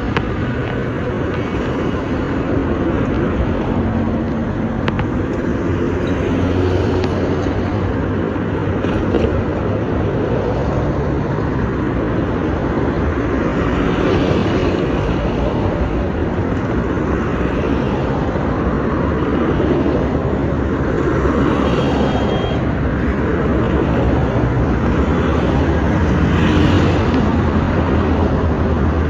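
Road vehicle noise: a steady engine and tyre rumble with a low hum.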